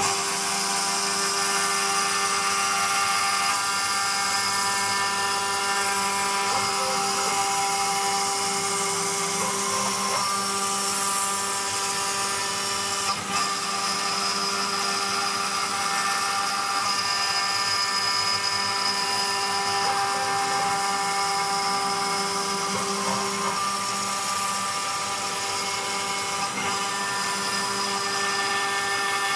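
Homemade CNC router's 500 W spindle running with a steady whine as a 2 mm two-flute end mill cuts a profile through a wooden board at a 1800 mm/min feed. Several held tones shift in pitch a few times as the machine works.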